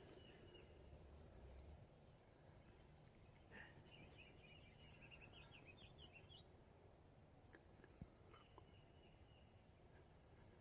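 Near silence in the woods: faint outdoor background with distant small birds calling, a short chattering song about three and a half seconds in, and a single soft tap near the end.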